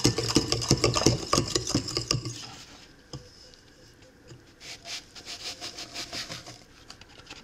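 Danish dough whisk's steel wire coil scraping and clicking against the bowl as wet batter is whisked quickly, stopping about two and a half seconds in. After a short lull, lighter scraping and tapping resumes as the flour mixture is poured in.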